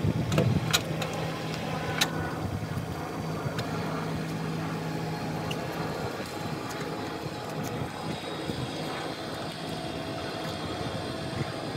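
Marina boat hoist's motor running with a steady hum as it lowers a boat into the water; the hum stops about six seconds in. A few sharp clicks come in the first two seconds.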